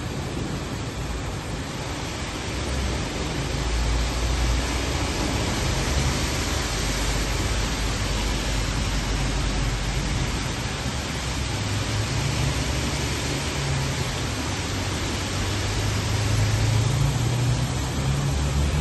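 Heavy rain pouring steadily, with a low rumble that swells and fades as cars drive through the flooded street.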